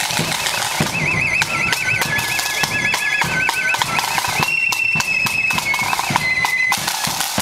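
Marching flute band playing: the high flutes warble in a fast trill for a few seconds, then hold steady notes, over the regular beat of side drums and a bass drum.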